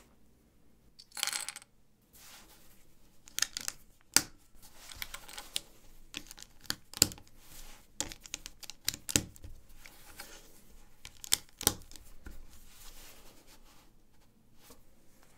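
1×4 LEGO plates handled and fitted together: irregular sharp plastic clicks and clatters, with a brief rustling scrape about a second in.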